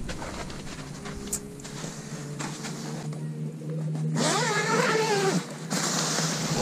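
An engine running steadily, with a pitched rise and fall about four seconds in, over the rustle of tent fabric as someone crawls out of an ice-fishing tent.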